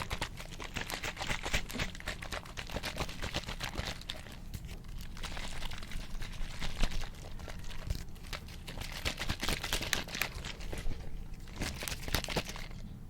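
Close-miked ASMR trigger sounds: dense, rapid, irregular crackling and tapping, like fingernails working over a textured or crinkly surface.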